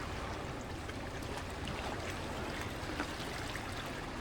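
Steady rush of moving water, with a few faint small ticks.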